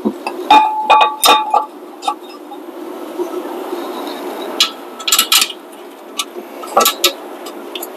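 Metal clinks and knocks of a rear disc brake caliper being fitted back over the pads and rotor. A cluster of ringing clinks comes about half a second to a second and a half in, with more knocks around five and seven seconds, over a steady low hum.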